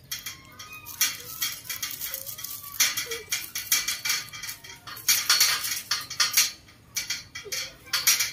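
Irregular metallic clinking and rattling, coming in quick clusters with louder bunches about a second in, around three seconds and again from about five to six seconds.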